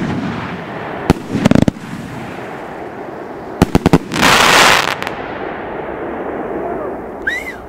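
Consumer firework battery of 45 mm calibre, 36 shots, firing its shells: sharp bangs about a second in, then a fast run of four cracks at about three and a half seconds, followed by a loud hissing rush for under a second, over a steady background of crackle.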